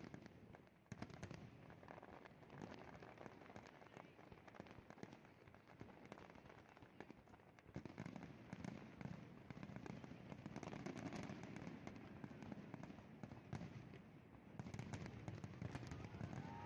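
Fireworks display: aerial shells bursting in a rapid string of bangs and crackles, growing denser about eight seconds in and again near the end.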